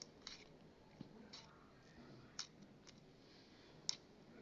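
Slime being squeezed and stretched by hand, giving a handful of faint clicks and pops; the sharpest comes near the end.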